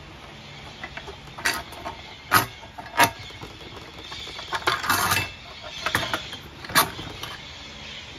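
Handling noise from a Fuji Spray Mini Mite 4 turbine's motor assembly and sheet-metal cabinet: sharp knocks and clanks, with a longer rattling scrape about halfway through, as the motor and turbine are worked loose and lifted out. The motor is not running.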